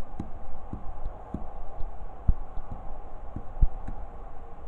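A run of soft, low, irregular thumps, about two or three a second, over a steady background hiss.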